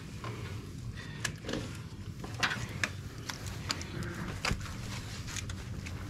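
Scattered light clicks and knocks of hands working the upper radiator hose and its clamp off a 1999 Jeep Grand Cherokee's engine, over a low steady hum.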